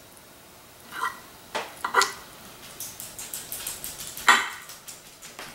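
Metal fork clinking and scraping against a ceramic plate while flaking apart a piece of grilled fish: several sharp clinks with a short ring, the loudest a little over four seconds in, and lighter taps between them.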